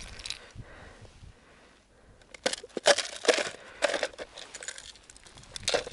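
Crunching and crackling of ice and slush being broken and cleared by hand at an ice-fishing hole around a tip-up, which has frozen in. It comes as an irregular run of sharp crunches starting about two seconds in.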